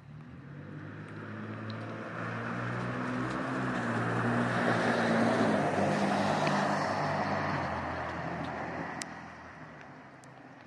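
A motor vehicle passing on a wet street: engine hum and tyre hiss build for about five seconds, then fade away. A couple of sharp ticks come near the end.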